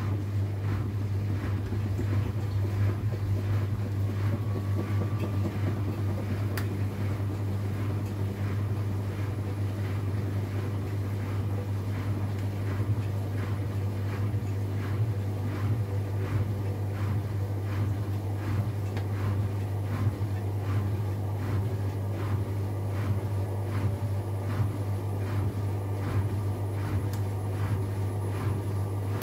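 AEG Lavamat 8000 series washing machine running with a steady low hum and a faint swish repeating a little more than once a second.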